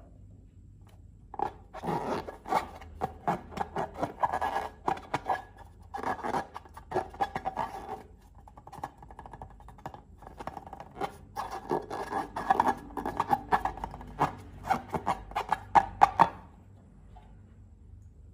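Slime being worked by hand, giving rapid, irregular sticky clicks and crackles in two stretches: one starting about a second and a half in, another from about ten seconds to sixteen.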